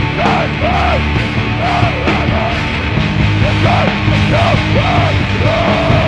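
Hardcore punk band playing loud, with distorted guitars and drums, and a vocalist yelling over them.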